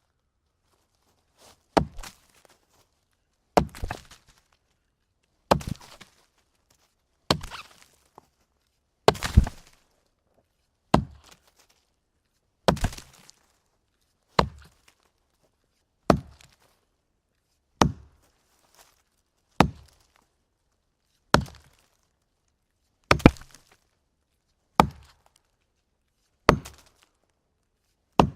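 Axe chopping wood: a steady series of sharp blows into the wood, one about every 1.8 seconds, each with a short splintering tail.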